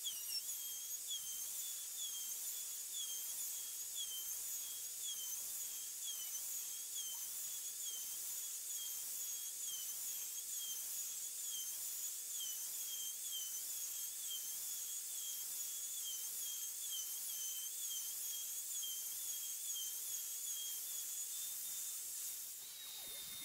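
Handheld router on a bed-rail router sled running with a high steady whine as it skims about 1/16 inch off an oak panel, its pitch wavering about twice a second. Near the end the whine rises slightly in pitch, steadies and drops in level.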